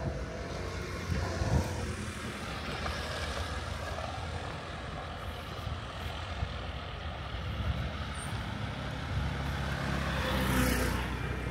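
Street traffic with a steady low rumble, and a motor scooter passing close near the end, the loudest moment, swelling and fading as it goes by.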